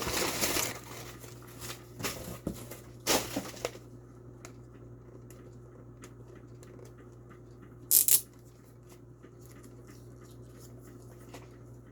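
Packaging and items being handled: a handful of short rustling, crinkling noises, the sharpest a quick double one about eight seconds in.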